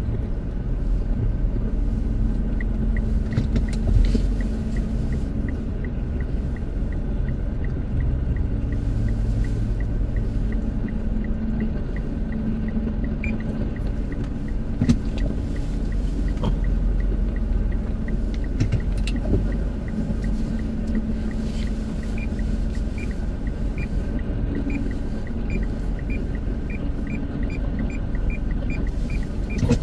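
Motorcycle engine running steadily with a low rumble. A quick, regular high ticking runs over it for a stretch near the start and again near the end.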